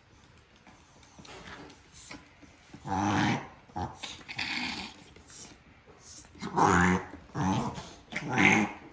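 Chihuahua reverse sneezing: a run of harsh, forceful pulls of air through the nose, each about half a second long, starting about three seconds in and loudest near the end. The sound comes from a spasm of the soft palate and throat.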